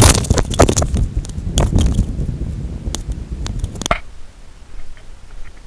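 Handling noise from a body-worn action camera: rubbing, knocks and low rumbling as it is moved about, with footsteps on dry dirt. The knocking is thickest in the first four seconds and then eases off.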